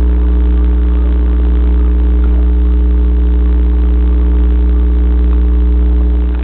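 Loud, steady low hum of an aquarium pump motor: an even drone with several steady higher tones above it.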